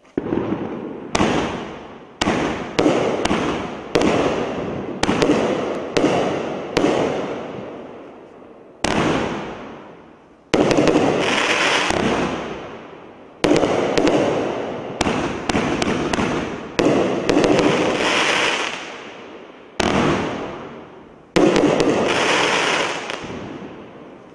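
Consumer cake firework firing a sequence of about twenty shots, sharp reports in quick irregular volleys, each decaying over a second or so. A few breaks trail off in a longer hiss, with short lulls a little over a third and about halfway through, and the last shot fading near the end.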